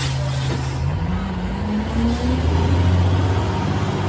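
Heavy truck engine running steadily, cutting in suddenly, with a brief rise in pitch about a second in.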